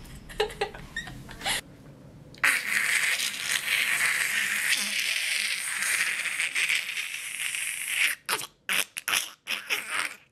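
A person making a sound effect with the mouth: a few short clicks, then one long breathy hiss of about five seconds, then a run of short hissing puffs.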